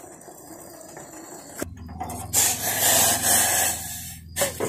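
Fish curry in a wok sizzling with a loud hiss for about two seconds, after a quieter first second and a half. A sharp click comes just before the end.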